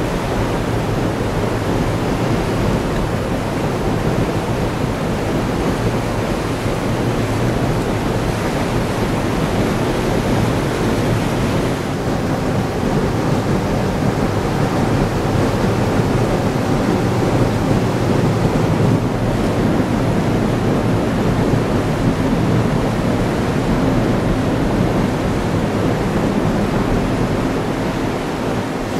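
Propeller wash of the ferry Queen of Oak Bay churning the water beside the hull as the ship manoeuvres at its berth: a steady rush of turbulent water, with wind buffeting the microphone.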